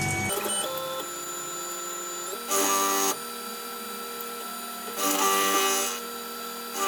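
Background music of held notes changing in steps, with two short bursts of scraping noise, the first about two and a half seconds in and the second about five seconds in.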